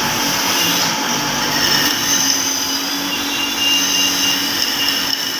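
A machine running steadily with a loud, even whir.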